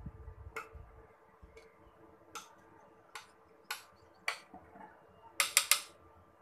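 Sharp, irregular clicks of a utensil knocking against a glass mixing bowl and a metal cake pan as thick mango cake batter is scraped out. Three quick clicks come close together near the end.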